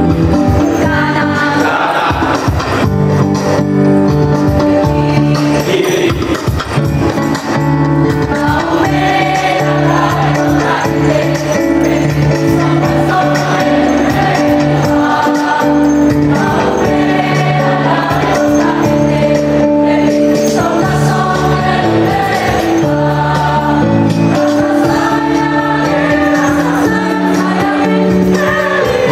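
A student choir singing together in unison over instrumental accompaniment with long held bass notes.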